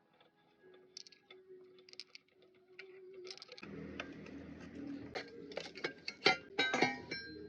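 Metal tools and parts clinking and clanking, a run of sharp ringing clinks loudest in the second half, over a steady low hum that starts about halfway through.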